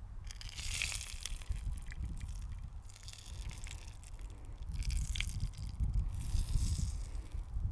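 Hot browned butter poured from a copper pan onto a plate of sliced tomatoes, dripping and splashing with a soft hiss. The hiss comes in two spells, about a second in and again from about five to seven seconds in.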